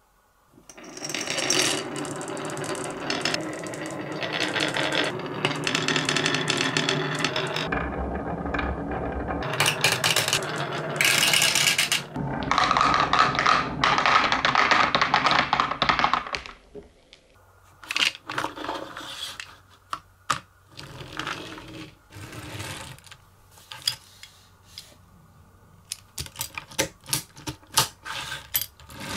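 A tube-full of marbles rolling and clattering down a wooden wave-track slope, a dense continuous rattle for about eleven seconds, then a few seconds more as they drop and roll into a plastic toy excavator bucket. After that, only scattered light clicks and knocks as the plastic and diecast toys are handled.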